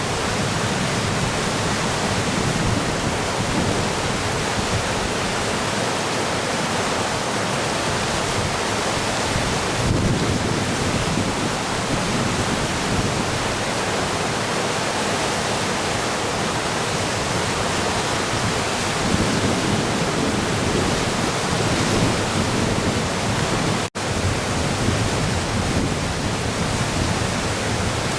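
Shimanto River in flood after a typhoon: fast, swollen water rushing with a steady, loud roar. It cuts out for an instant near the end.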